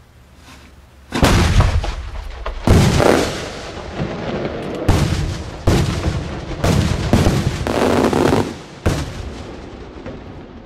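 Large aerial firework cylinder shell bursting as a multi-break salute: a string of about eight loud bangs spread over some eight seconds, each followed by a rolling echo.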